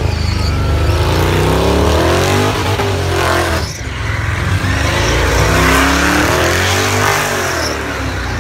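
A burnout car's engine held at high revs, the pitch rising and falling in repeated waves as the throttle is worked, with the rear tyres spinning and squealing against the pad. The revs drop briefly a little over three seconds in, then climb again.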